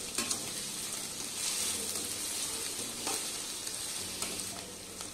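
Chopped onions and green chillies sizzling in hot oil in a kadai, stirred with a slotted metal spoon that scrapes and clicks against the pan a few times.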